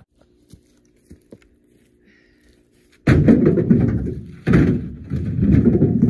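Chunks of firewood thrown into a pickup truck's bed: two heavy thuds, about three seconds in and a second and a half later, each followed by over a second of knocking as the wood settles.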